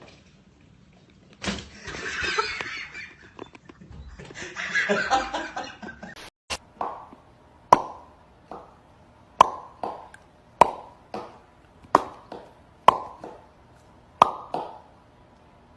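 A quiet stretch of soft hazy noise, then more than a dozen sharp knocks or taps at uneven intervals, each with a brief ringing tone.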